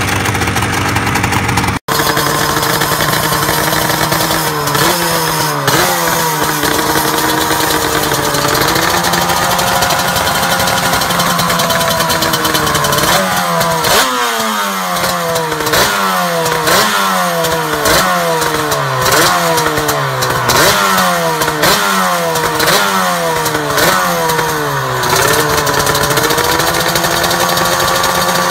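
Suter MMX 500 two-stroke V4 racing engine being revved with the throttle while standing still: a few blips, then a slower rise and fall, then a run of quick blips about one a second, settling back near the end. Before a brief cut in the first two seconds, a Yamaha RZV500 two-stroke V4 is heard idling.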